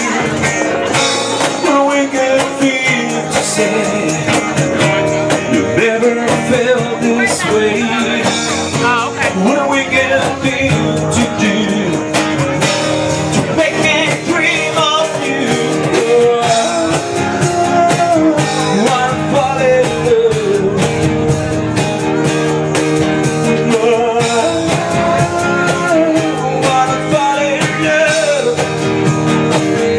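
Live acoustic guitar being strummed while a man sings through a microphone.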